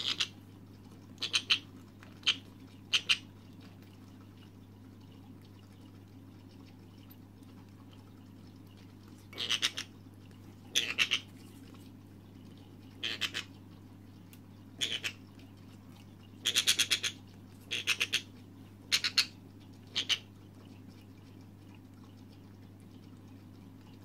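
Senegal parrot chick giving short, rasping squawks while being hand-fed formula from a pipette, the begging calls of a feeding chick. About a dozen calls come in irregular clusters, with a long pause of several seconds in the first half.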